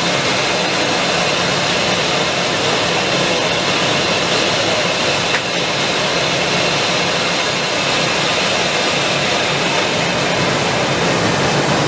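Steady, loud rushing noise of a running blown film extrusion line and its blowers. There is a brief dip about five seconds in.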